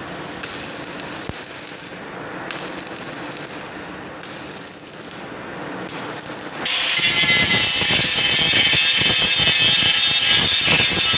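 Irregular crackling of electric arc welding on a galvanised-iron cable tray joint. About seven seconds in, an angle grinder starts grinding the welds flat, much louder and steady, with a high, hissing edge.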